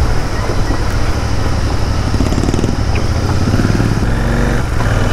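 Royal Enfield Bullet 500's single-cylinder engine running steadily as the motorcycle is ridden along.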